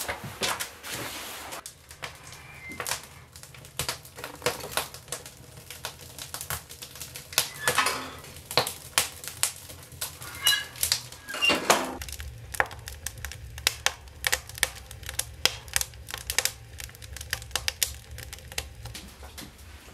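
Wood fire crackling in a woodstove: a rapid, irregular run of sharp clicks and pops, with a couple of louder metal knocks from the stove about eight and eleven seconds in.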